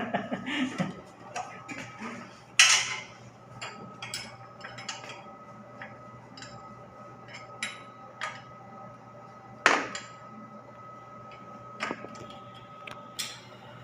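Scattered metallic clinks and taps of hand tools on metal while bolts are worked loose on a water heater's circulating pump, over a steady machinery hum. Two louder knocks stand out, one near three seconds in and one near ten seconds in.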